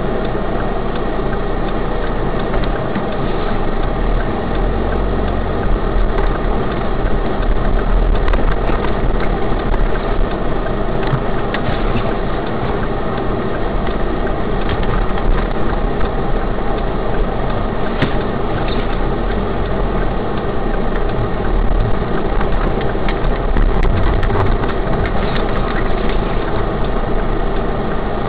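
Car engine running with road noise, heard from inside the car's cabin, with scattered light knocks and rattles.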